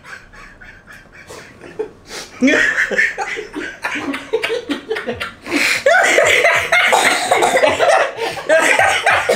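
Two people laughing hard, stifled snickers at first, breaking into loud laughter about six seconds in.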